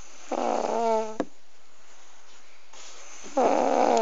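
Sleeping baby snoring: two snores about three seconds apart, each under a second long and carrying a pitched tone.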